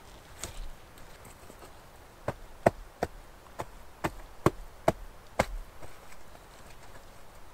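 Axe chopping wood: a run of about eight sharp strikes, roughly two a second, starting about two seconds in.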